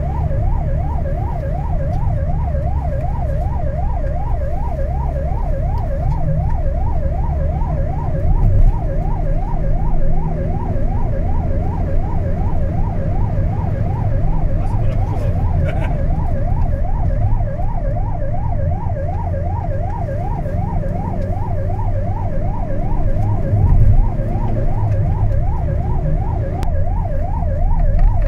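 Emergency vehicle's electronic siren in fast yelp mode, sweeping quickly up and down a couple of times a second, heard from inside the vehicle's cab over steady engine and road rumble.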